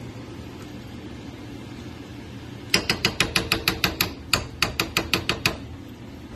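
Metal spoon tapped rapidly against the rim of a frying pan, a quick run of sharp clanks about six a second with a short break in the middle, knocking pesto off the spoon.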